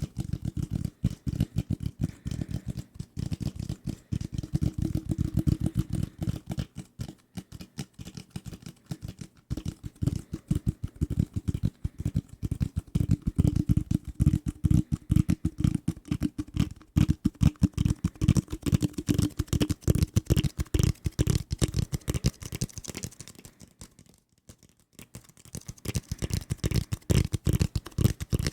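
Fingertips tapping fast on desk objects, many taps a second, mostly dull and low. The taps turn brighter and crisper for a stretch past the middle and again near the end, with a short break about 7 seconds in and another about 24 seconds in.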